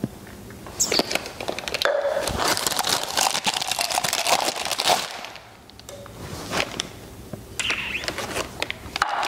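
Packaging crinkling and rustling, with many small clicks and knocks, as plastic drinking cups are unpacked and handled. It eases off for a moment a little past halfway.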